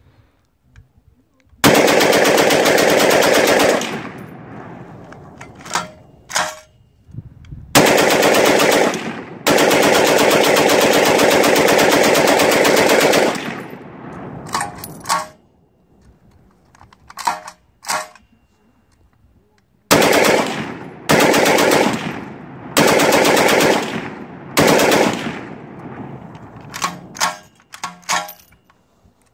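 Browning M1919A4 belt-fed machine gun chambered in 7.62x54R firing fully automatic bursts: one of about two seconds, a long one of about five seconds, then four short bursts in quick succession. Each burst trails off in echo, and a few short sharp clicks fall between the bursts.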